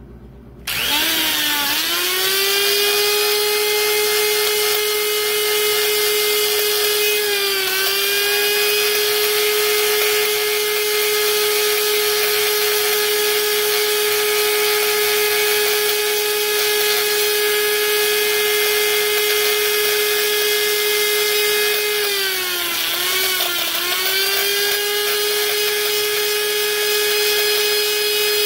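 Die grinder with a carbide burr spinning up under a second in, then running at a steady high whine. Its pitch sags briefly around eight seconds in and again for a couple of seconds about two-thirds of the way through as the burr bites into the cast-iron combustion chamber. It is grinding away the sharp valve-job ledge around the intake valve seat to blend and deshroud it.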